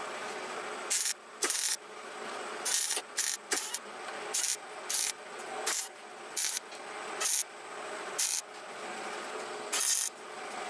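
Hobart Handler 140 wire-feed MIG welder arcing in about a dozen short crackling bursts while welding a steel nut onto a bolt, with a steady hum between the bursts.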